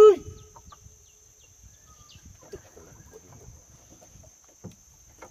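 Hunting dogs on a sambar deer's trail: one loud, drawn-out yelp at the start, falling in pitch, then faint scattered barks and yelps further off.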